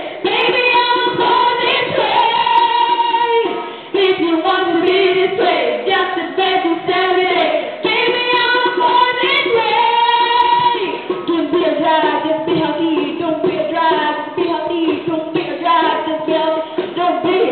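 Girls singing a pop song into microphones, a continuous sung melody with short breaks between phrases about 4 and 8 seconds in.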